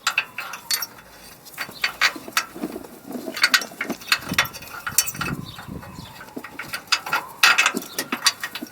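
Hand tools clicking and clinking against metal in irregular bursts as a front control-arm (A-arm) bolt is run in, with ratchet-like clicks among them.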